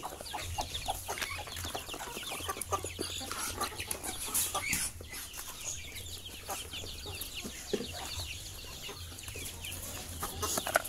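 Chickens clucking, with scattered short calls and light clicks.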